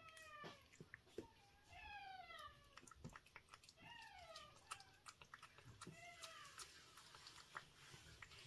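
Domestic cat giving three short meows, each falling in pitch, about two seconds apart, among small irregular clicks of licking and chewing soft wet food from a steel bowl.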